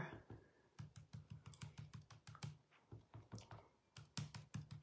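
Sponge dauber tapping white ink onto embossed cardstock and the ink pad in quick, light, faint dabs, about five a second, pausing briefly near the middle.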